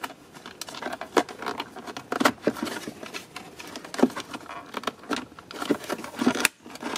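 Fingers working a plastic wiring connector loose from a Tesla Model Y's centre-console data module: irregular small plastic clicks, taps and rustling, with a few sharper clicks.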